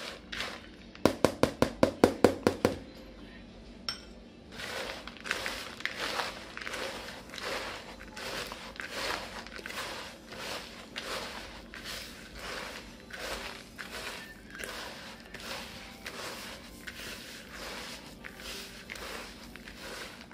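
About a second in, a quick run of about a dozen sharp knocks from a spatula against a plastic mixing bowl. Then a hand crushes and kneads buttered granola crumbs in the bowl: a rustly crunching that comes in soft repeated pushes.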